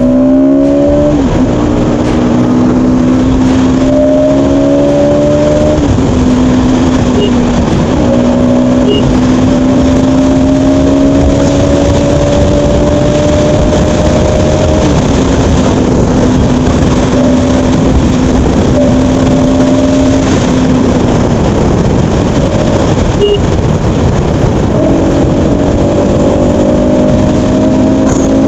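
Bajaj Pulsar NS200's single-cylinder engine running under way, its pitch creeping up slowly and dropping back several times as the revs change, with heavy wind noise on the microphone over it.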